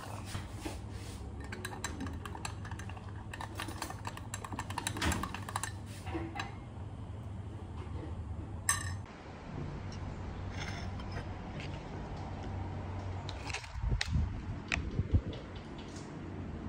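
Small clicks, taps and clinks of things being handled at a kitchen counter over a steady low hum, with a few louder knocks near the end.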